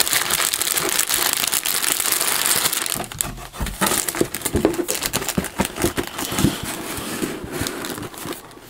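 Plastic bags around model-kit runners crinkling as they are handled for about three seconds, then quieter scattered rustles and light knocks as the parts and manual are moved.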